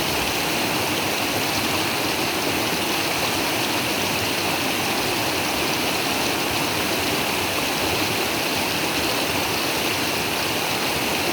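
River water rushing steadily over rocks: a constant, even rush.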